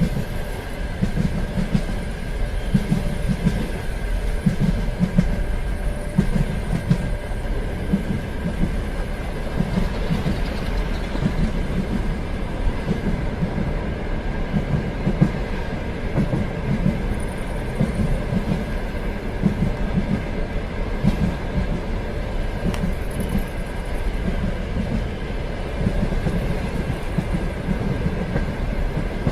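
Train running along the track, its wheels clattering over rail joints in a steady clickety-clack about once a second over a constant rumble, with a thin steady hum above.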